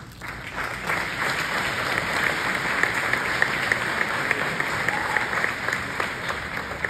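An audience applauding, the clapping building up within the first second and starting to die away near the end.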